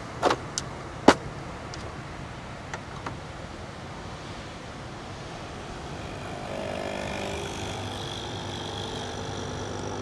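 De'Longhi Nespresso capsule machine: two sharp clicks as its lever is shut over the capsule, then about six and a half seconds in its pump starts a steady buzz as the coffee brews.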